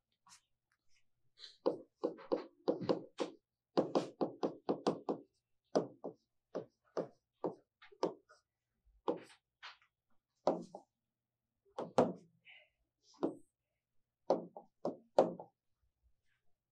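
Stylus tapping and knocking on an interactive smart-board screen while writing: a run of short, sharp taps, densest and quickest in the first few seconds, then more scattered taps until near the end.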